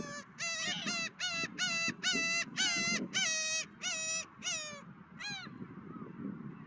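A gull calling: a rapid series of about a dozen short yelping notes, roughly three a second, that stops about five seconds in. Low wind noise runs underneath.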